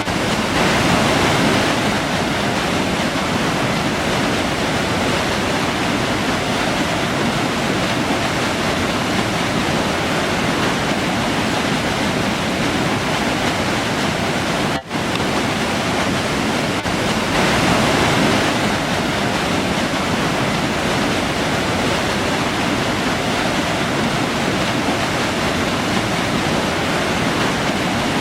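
River water rushing steadily over its bed, a dense, even noise that swells slightly twice and cuts out for an instant about halfway through.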